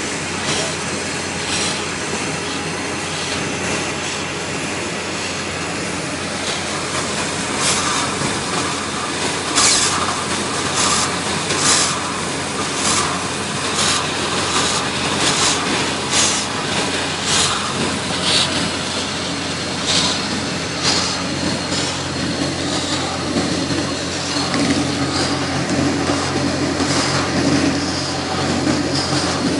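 Air compressor and well rig running steadily as compressed air is forced down a water well to clean it. From about seven seconds in come loud, sharp rushes roughly once a second, the air and water surging out of the well as it is blown clean.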